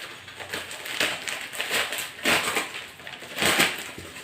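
Product packaging being handled and opened: rustling, scraping noises, with two louder bursts about two and three and a half seconds in.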